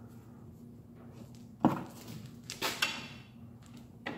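Metal knocks and clatter from steel parts of a truck's front steering knuckle being handled by hand. There is a sharp knock about a second and a half in, a short clatter with a brief ring about a second later, and a light tap near the end, over a low steady hum.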